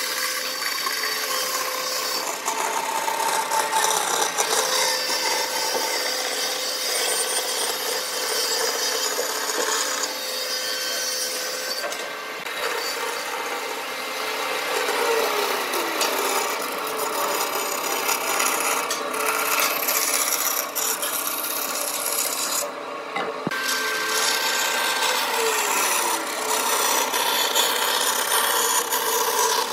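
Band saw cutting a curve through an edge-glued wooden panel: a continuous rasping of the blade in the wood, with a short lull a little over two thirds through.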